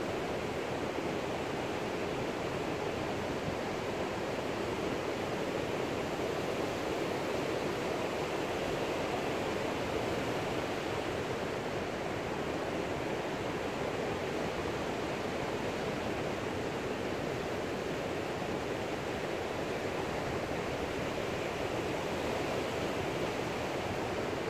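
A steady rushing noise that holds an even level throughout, with no distinct events in it.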